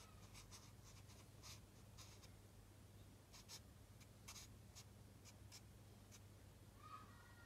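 Faint scratching of a black felt-tip marker on paper as it draws a series of short, quick strokes, with a short squeak near the end. A low steady hum runs underneath.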